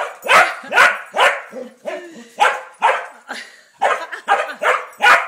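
Small dog barking repeatedly at a desert tortoise, short sharp barks at about two a second.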